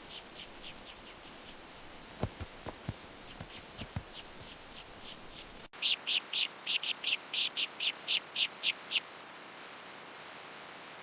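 A bird calling a rapid series of short, high, repeated notes, about four or five a second. The run fades, and a few sharp clicks or taps come a couple of seconds in. After an abrupt cut, a louder run of about a dozen notes follows and then stops, leaving a steady hiss.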